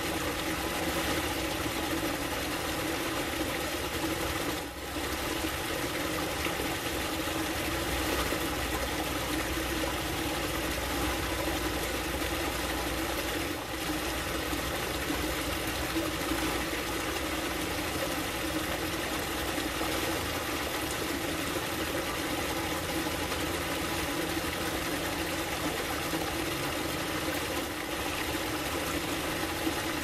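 Water pouring steadily over a small rock cascade into a pool, a continuous splashing rush with a steady low hum underneath.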